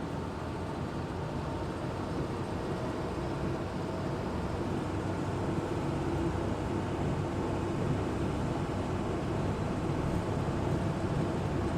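Engine of an amphibious Duck tour vehicle running steadily under way, a constant drone that slowly grows a little louder.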